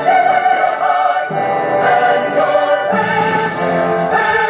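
Choir singing long held notes over a music backing, as in the soundtrack of a fireworks show.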